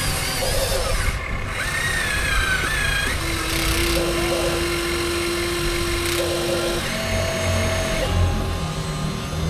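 Whine of the small electric motors and gearboxes in radio-controlled construction models, holding steady tones that shift pitch as the machines move.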